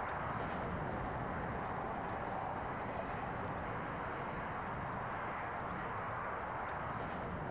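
Heritage NSWGR 620/720 class diesel railmotor set running along the line: a steady, even rumble and hiss of engine and wheels, with a few faint ticks.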